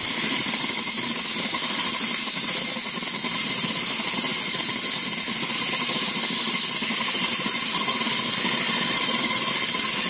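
Compressed air from an air-compressor blow-gun nozzle hissing steadily and loudly into a plastic water bottle. A piece of paper towel is tumbling around inside the bottle, drying it out.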